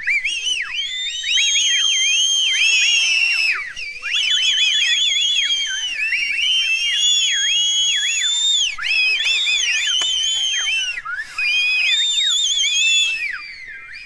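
A crowd whistling: many whistles at once, overlapping and sliding up and down in pitch, with brief lulls just before four seconds in and around eleven seconds, over faint crowd noise.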